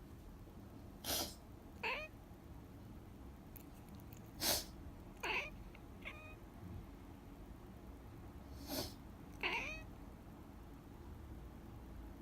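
A person sniffling three times, each sniff answered less than a second later by a short meow from a pet cat, with one more faint meow after the second sniff. The cat is meowing back in disapproval at the sniffling.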